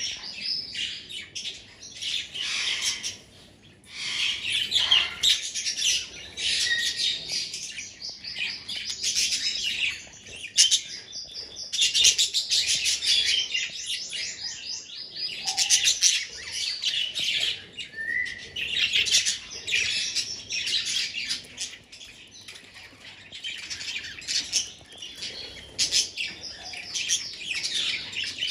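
A flock of budgerigars chattering and warbling without pause, many birds' chirps overlapping in a dense high-pitched stream, with brief lulls.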